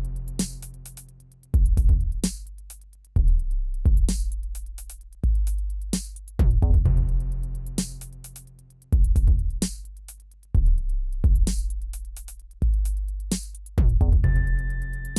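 Electronic music with a drum-machine beat: heavy deep bass hits and sharp percussion strikes repeating in a steady pattern, with a high held synth tone coming in near the end.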